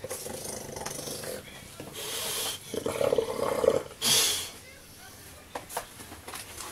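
Bulldog grumbling and growling in raspy spells, loudest around three seconds in, with a short loud breathy huff just after: an annoyed, grumpy dog with Christmas socks on his paws.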